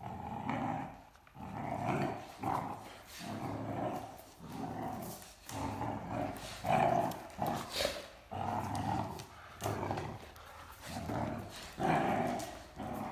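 Great Danes growling in play while tugging on a rope toy: a run of rough growls, one every second or so.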